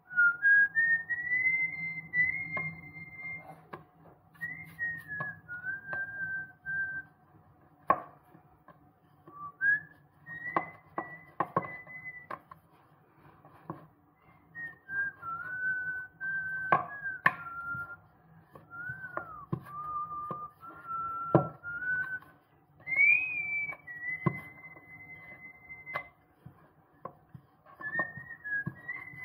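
A person whistling a tune in held notes joined by short glides, broken into phrases, over scattered knocks and clacks of a wooden rolling pin rolling out dough on a wooden board.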